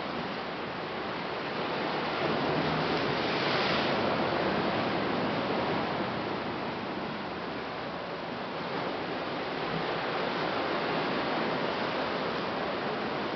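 Ocean surf washing against a lava-rock shoreline: a steady rush that swells about two seconds in and again near the end.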